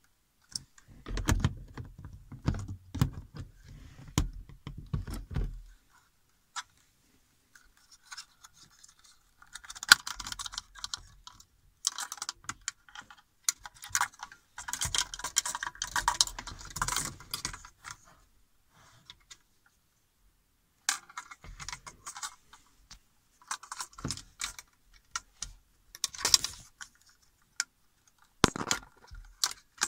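Hard plastic interior roof-light housing and its wiring connector clicking and rattling as they are handled, in irregular clusters of small clicks with pauses between them. There are low thumps in the first few seconds.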